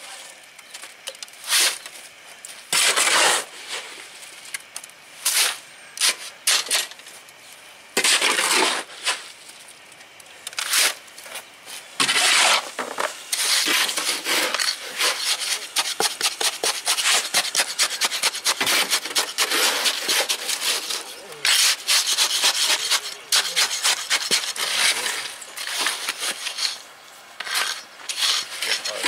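A shovel scrapes wet concrete out of a steel wheelbarrow in separate strokes. About twelve seconds in, a hand float starts rubbing over freshly placed concrete in a curb form, in quick, repeated back-and-forth scraping strokes.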